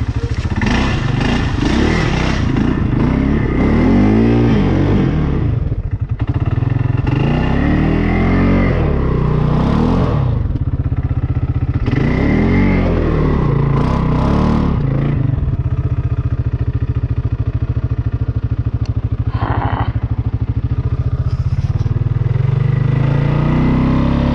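Four-wheeler (ATV) engine running, revved up and back down several times in repeated surges between spells of lower running.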